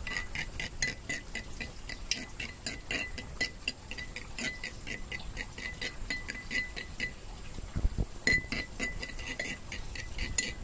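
Metal spoon clinking against a ceramic bowl while beating a raw egg, about three or four quick taps a second, with a harder knock about eight seconds in.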